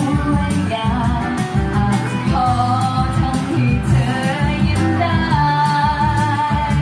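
A woman sings a pop ballad live into a microphone, accompanied by a strummed acoustic guitar through a PA. She holds one long note over the last second and a half.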